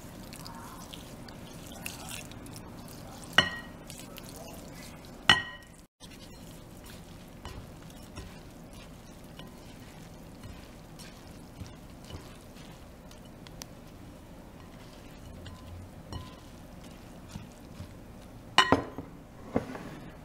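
Warm water poured from a glass measuring cup onto dry tapioca pearls in a glass bowl, with two sharp ringing glass clinks. Then a utensil stirs the wet pearls with faint scraping, and a few louder clinks against the glass bowl come near the end.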